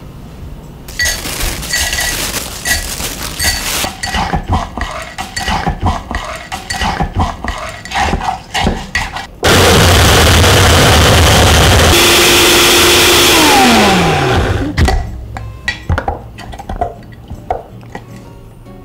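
Clinks and knocks of ice and frozen avocado against a glass blender jar, then the blender switched on for about five seconds, crushing the ice and half-frozen avocado, its motor winding down with a falling whine once it is switched off. Lighter scraping clicks of a wooden spatula in the jar follow.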